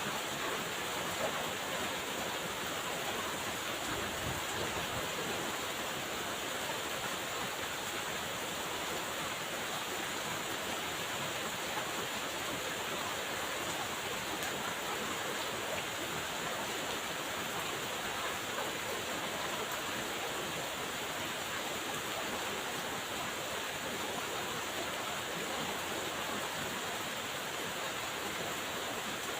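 Steady rain falling, an even hiss of rainfall that does not change.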